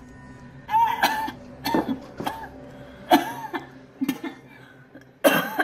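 A girl coughing and retching into a metal bucket in about six harsh, strained bouts, the loudest in the first second and near the end.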